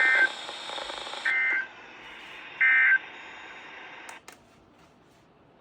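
NOAA Weather Radio broadcasting the three short digital data bursts of the EAS end-of-message (EOM) code, about a second and a half apart, over radio static. This is the sign that the severe thunderstorm warning message has ended. The static cuts off with a click about four seconds in as the station's transmission drops.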